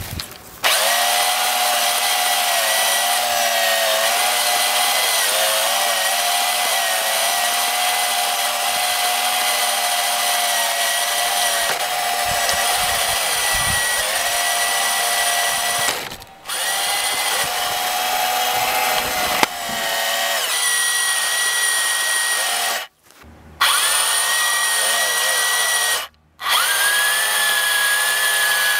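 Electric drive motors and gearboxes of a small tracked robot vehicle whining steadily as it drives, heard from on board. The whine drops out briefly three times.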